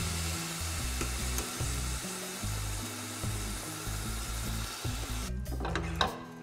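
Boiled tortelli sizzling in hot oil in a frying pan as they are stirred with a metal skimmer, over background music; the sizzling cuts off suddenly about five seconds in.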